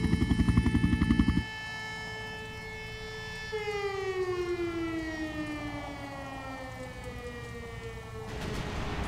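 Demolition warning siren holding a steady tone, then winding down, falling slowly in pitch over about five seconds. A fast low pulsing stops abruptly about a second and a half in, and a loud rush of noise starts near the end.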